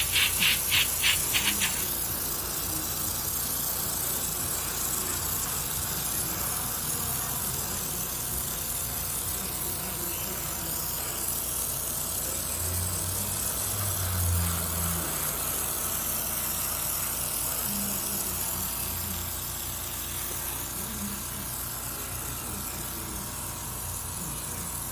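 A steady, loud hiss of rushing air, with a quick rattle of about seven clicks in the first two seconds.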